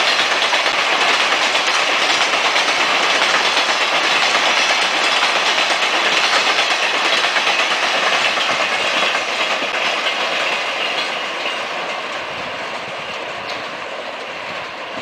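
Cattle train's livestock wagons rolling past on steel wheels, a loud steady rumble and clatter that fades over the last few seconds as the end of the train goes by and draws away.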